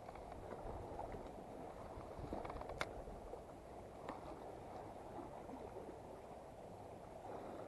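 Faint steady wash of sea water against the rocks of the jetty, with a sharp click about three seconds in and a softer one about a second later.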